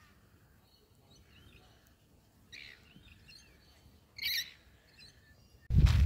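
A few short bird chirps against quiet background, the loudest just after four seconds in. Near the end, close footsteps start abruptly and loudly.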